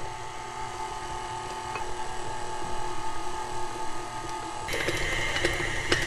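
Electric stand mixer running steadily with its beater in the frosting as cocoa powder is mixed in. Near the end it gets louder and higher-pitched, with a fast rattling clatter, as the mixer speeds up.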